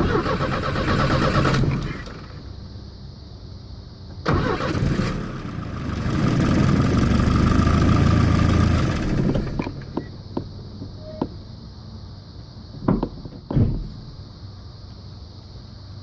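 1992 Volvo 740 turbo's four-cylinder engine being cranked by the starter motor without catching: a crank of about two seconds, then a longer one of about five seconds starting about four seconds in, and two short blips near the end. This is its warm no-start fault.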